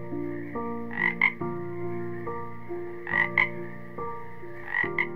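A frog croaking in short double calls, three times, over soft background music.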